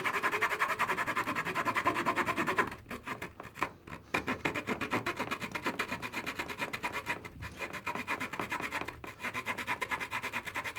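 Victorinox pocket-knife saw blade cutting a groove into wood with quick, even back-and-forth strokes. The sawing pauses about three seconds in, then goes on.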